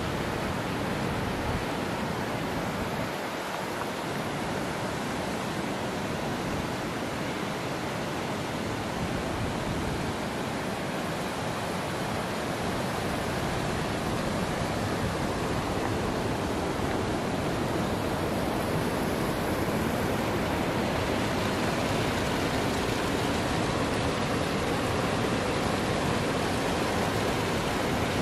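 Steady rushing of flowing stream water, growing slightly louder about halfway through.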